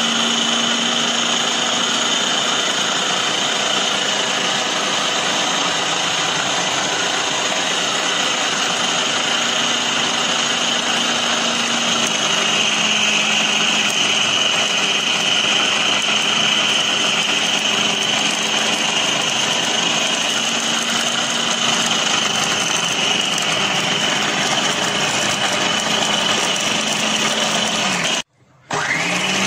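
Westpoint food processor motor running steadily with a high whine as it kneads a stiff flour dough in its bowl. It breaks off for a moment near the end and comes back, rising in pitch as it gets up to speed.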